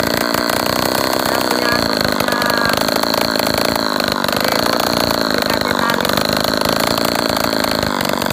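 Brush cutter (grass trimmer) engine running hard with its muffler removed, a loud steady buzz whose pitch wavers slightly as the load changes.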